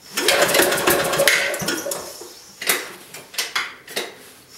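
Small military diesel generator engine being cranked over cold without catching: a rapid mechanical clatter for about a second and a half, then shorter bursts later on.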